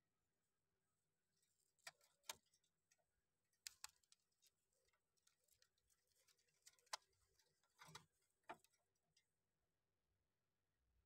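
Near silence broken by a few faint, scattered clicks and scuffs, irregularly spaced, with a slightly longer scuff about eight seconds in.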